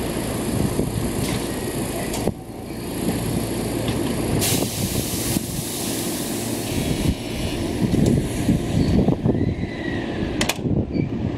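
Electric commuter train standing at a platform with its doors being closed for departure. A steady low running noise, a burst of hiss a few seconds in, and a sharp click near the end.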